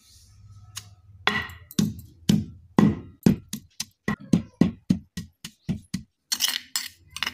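Wooden pestle pounding roasted sesame seeds and grated coconut in a stone mortar: a run of dull thuds, about three a second, starting about a second in.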